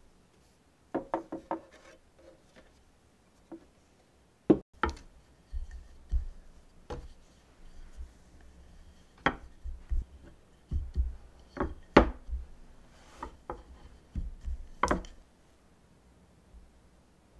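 Rolling pin rolling out bread dough on an end-grain wooden board: a series of irregular wooden knocks with low thuds as the pin meets the board, stopping a couple of seconds before the end.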